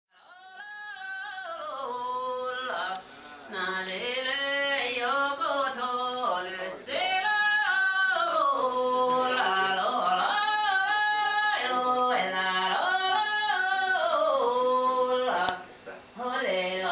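Vocal music: a solo singing voice in long gliding phrases over low accompanying notes, fading in over the first couple of seconds.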